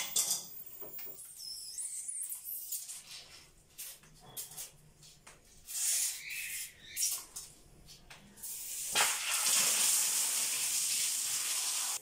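Clicks and small knocks of a fitting being worked at a wall water-supply outlet, then about nine seconds in, water bursts out under pressure and keeps spraying with a steady hiss, because the supply valve had been left open.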